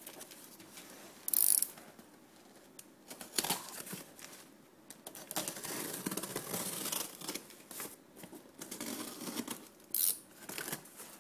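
A blade slitting the packing tape on a cardboard shipping box, in irregular scraping and tearing bursts, with a sharp rip about a second in and another near the end.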